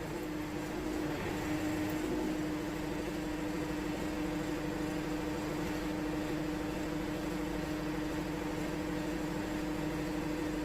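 Wood-Mizer LT70 band sawmill running steadily, its band blade sawing a log into boards, with an even, unchanging hum.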